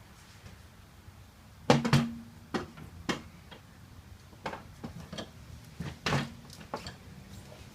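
A series of irregular knocks and clunks, some with a short metallic ring, as a Honda Goldwing's rear wheel and tire are worked out of a tight space on the motorcycle. The loudest clunks come about two seconds in and again about six seconds in.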